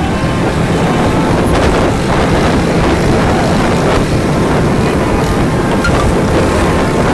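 Steady rumble of road traffic and engines heard from a moving car, with wind buffeting the microphone.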